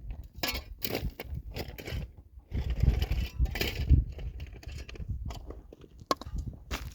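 Irregular crunching and clinking of stones and soil over a low rumble, typical of an excavator bucket digging a trench in stony ground.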